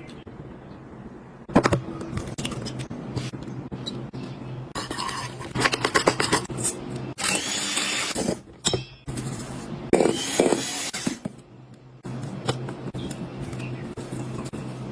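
Kitchen food-prep sounds: utensils and cookware scraping, clicking and knocking over a steady low hum. The sound changes abruptly several times.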